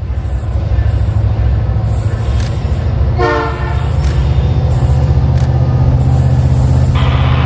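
Diesel freight locomotive running with a loud, steady deep rumble. A short horn blast sounds about three seconds in, and a brief hiss comes near the end.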